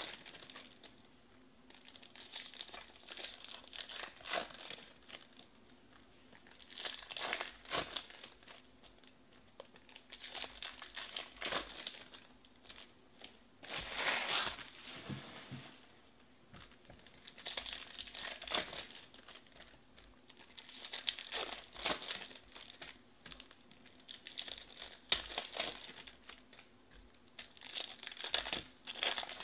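Foil trading-card pack wrappers (2020 Topps Finest Baseball) crinkling as packs are handled and worked open by hand, in repeated bursts every three seconds or so.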